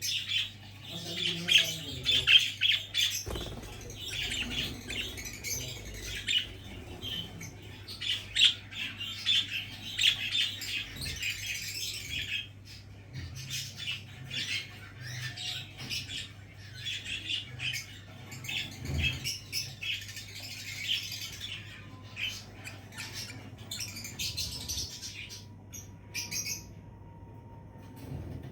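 Pet budgerigars chirping and chattering in a dense, rapid run of short high chirps, which thins out with a brief pause near the end.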